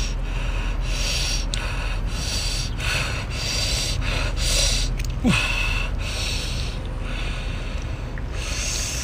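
A man puffing and huffing air through pursed lips in short repeated breaths, about one a second, to cool scalding-hot sea snail meat, with one short falling vocal sound about five seconds in.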